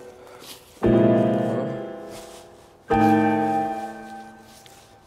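Slow piano music: two sustained chords, struck about a second and three seconds in, each left to ring and fade.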